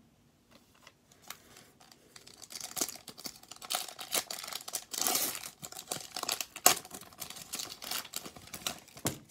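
Foil wrapper of an Upper Deck hockey card pack being torn open and crinkled: irregular crackling and tearing, heaviest about five seconds in, with one sharp snap a little later.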